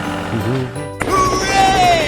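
Cartoon soundtrack: background music with a short voice-like jabber, then about a second in a sudden hit followed by a whistle sliding steadily down in pitch.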